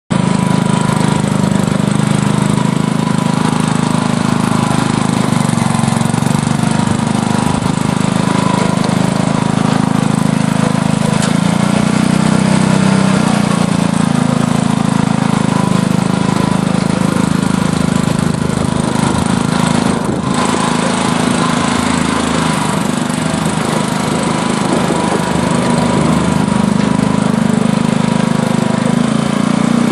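Small engine of a Kubota tracked mini dump truck running steadily as the machine drives slowly over rough ground.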